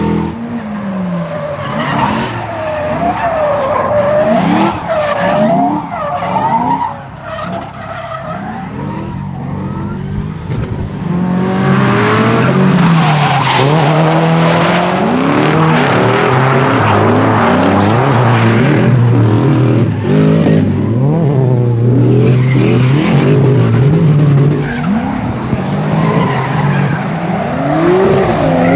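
Drift car engines revving hard, the pitch swinging up and down as the throttle is worked, with tyres squealing and skidding through the slides. Louder from about twelve seconds in.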